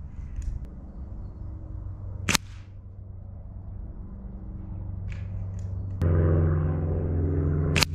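Two sharp cracks about five and a half seconds apart: .177 pellets from a Webley VMX Quantum air rifle striking a paper target card. From about six seconds in, a steady low drone joins and carries on.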